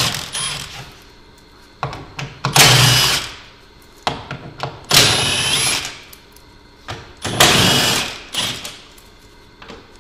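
Cordless power driver running in short bursts of about a second, roughly every two and a half seconds, backing out the 10 mm bolts along the front of the battery pack cover.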